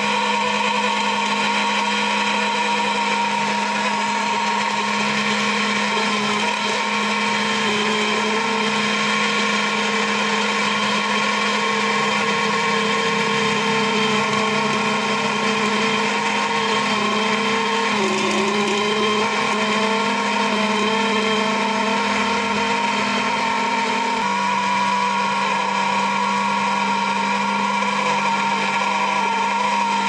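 Key-cutting machine's motor running steadily while its end-mill cutter mills a copy of a Haval car key into a blank; the whine dips briefly a few times.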